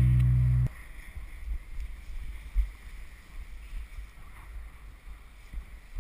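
A loud held music chord cuts off abruptly under a second in, leaving low, gusty wind rumble buffeting the camera's microphone.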